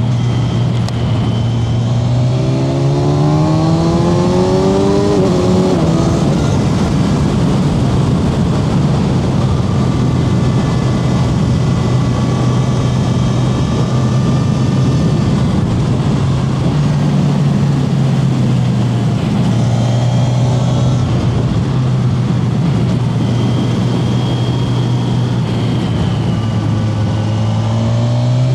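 Kawasaki Z1100 SE's inline-four engine under way. It rises in revs for a few seconds near the start, drops back sharply, runs steadily for most of the stretch, then rises again near the end.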